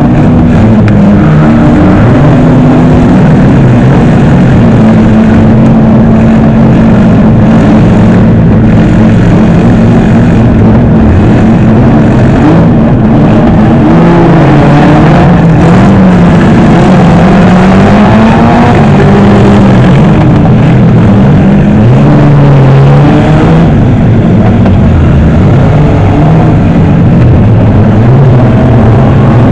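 Several junk-rally cars' engines running and revving hard together, their pitches rising and falling as they race around the track; very loud throughout.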